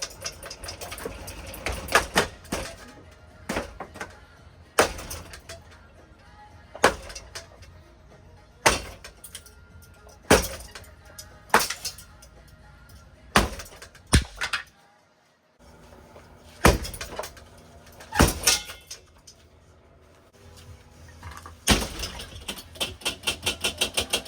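Sharp knocks and cracks of a ceiling fan being smashed apart, roughly one every one to two seconds, with a rapid run of clicks near the end. Background music plays underneath.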